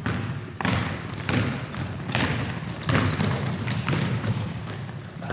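Basketball bouncing on a hardwood gym floor, a thud roughly every second, with a few short high squeaks of sneakers on the floor in the second half.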